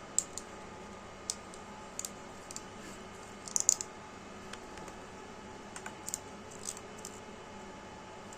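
Scattered light clicks, about a dozen, with a quick run of four or five about three and a half seconds in, over a steady hum.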